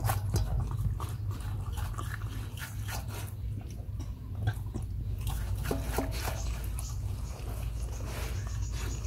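A dog eating cooked rice from a metal bowl: irregular chewing with quick small clicks against the metal.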